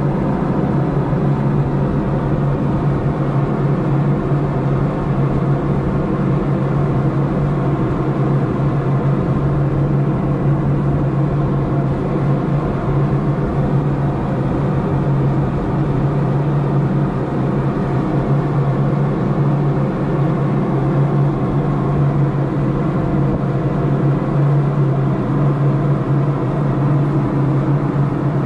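Ship's machinery running: a loud, steady engine drone with a deep hum and a stack of overtones that holds unchanged throughout.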